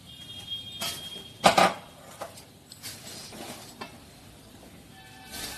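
Spoon scraping and clinking against the pan while brown sugar is stirred into a dry mix of ground makhana, nuts and roasted mawa, with one louder scrape about a second and a half in.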